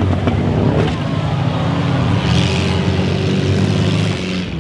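Several demolition derby cars' engines running loudly together as the cars shove into one another, with a burst of hiss about halfway through.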